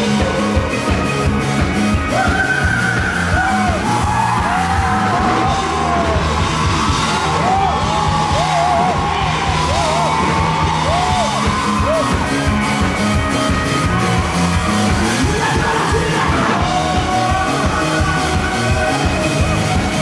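Rock band playing live: a red semi-hollow electric guitar plays a lead line with bending notes over drums and bass, from about two seconds in to past the middle.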